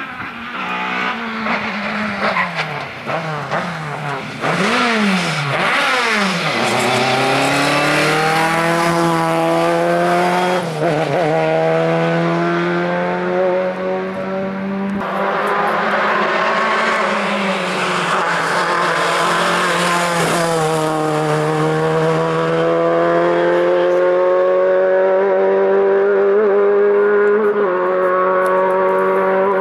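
Lada VFTS rally car's engine revving hard, its pitch dropping and climbing again and again as it brakes, changes gear and accelerates through tight corners, with some tyre squeal.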